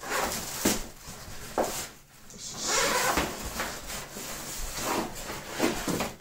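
A rifle bag being handled: rubbing and rustling with a few sharp clicks and knocks.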